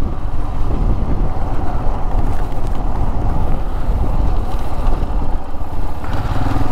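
Motorcycle running at road speed, its engine mixed with heavy wind rumble on a camera microphone riding on the bike. Near the end a steadier engine hum comes through more clearly.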